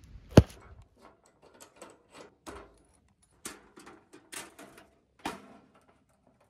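Clicks and light metal clatter from handling a Coleman two-burner camp stove's folding windscreen panels and lid, with one sharp, loud click about half a second in followed by a string of smaller clicks.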